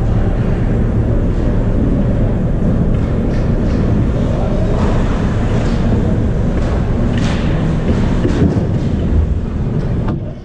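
Steady loud rumble of an ice hockey game in play, with several sharp knocks scattered through it; the rumble cuts off suddenly near the end.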